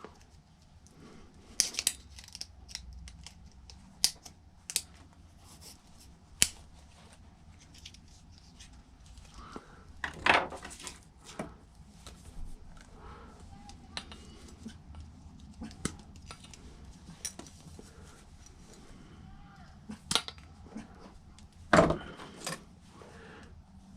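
Scattered clicks, knocks and scrapes of small hand tools prying and working at a stainless clamp on a glued-on yoke inside a karaoke machine being stripped for scrap. Louder knocks come about two, four to five, ten, twenty and twenty-two seconds in.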